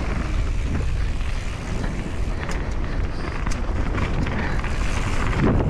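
Mountain bike riding down a dirt forest trail: steady wind rumble on the microphone with tyre noise and the bike rattling over the ground, with a few sharp clicks about halfway through.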